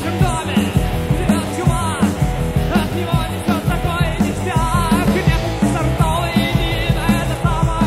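Studio rock song: a band of drums on a steady beat, bass and guitars, with a wavering melody line riding on top.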